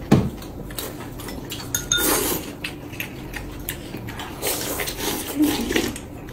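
Family meal eating sounds: chopsticks and spoons clicking and clinking against ceramic bowls, with noodles slurped from a bowl. A single sharp knock right at the start.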